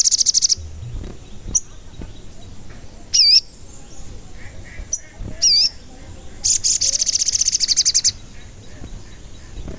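A sogon songbird calling: short, sharp high-pitched chirps, twice, then a long rapid trill of evenly repeated notes lasting about a second and a half near the end.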